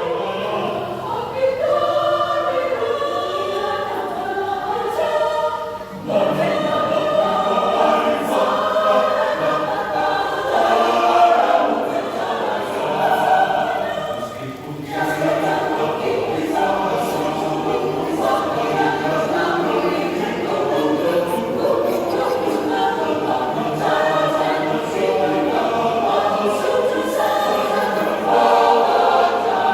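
Church choir singing a hymn together, with short breaks between phrases about six and fifteen seconds in.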